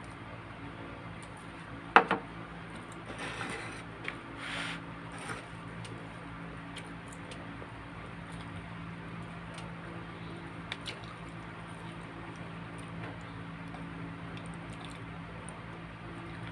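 A sharp knock about two seconds in, then wet squishing and tearing as a whole roast chicken is pulled apart by hand, with faint clicks over a steady low hum.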